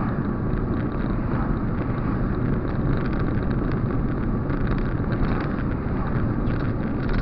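Steady road noise inside a moving car: engine and tyres on a wet road, with a few faint ticks over it.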